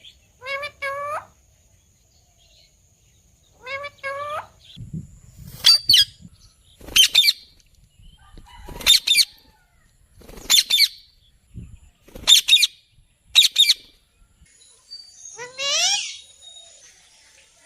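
Young parrot calling: two pairs of short rising squawks, then a run of loud, shrill screeches every second or two, and one long rising squawk near the end.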